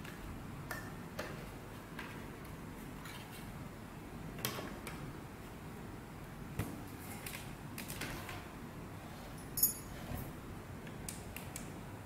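Scattered clicks, taps and clinks of the hard plastic cover and metal clamp parts of a 2M2 Magic Tank key cutting machine being handled and fitted, over a steady low hiss. The sharpest clink comes near the end.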